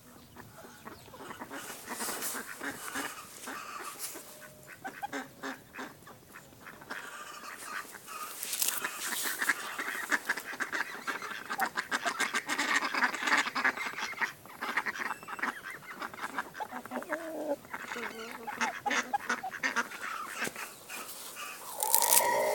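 A flock of chickens clucking and calling close by, mixed with many short taps and clicks as the birds peck at the ground next to the microphone. Near the end a louder single call falls in pitch.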